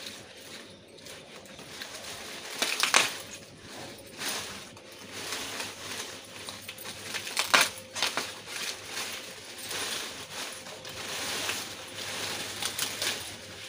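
Green maize plants rustling and crackling as ears are pulled from the stalks and their husks stripped by hand, with sharp snaps about 3 and 7.5 seconds in.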